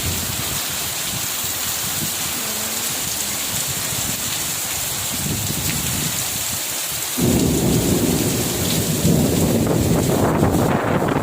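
Heavy rain pouring in strong wind, a steady hiss. About seven seconds in it suddenly turns louder, with a deep rumble underneath.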